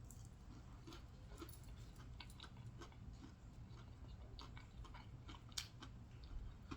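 A person chewing fried catfish close to the microphone: faint, scattered mouth clicks over a low hum, with one sharper click about five and a half seconds in.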